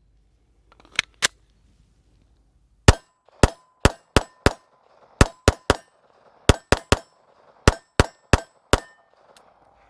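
Walther PPQ M2 Q4 TAC 9mm pistol fired in quick strings, about fifteen shots in four bursts of five, three, three and four, after two lighter sharp clacks about a second in.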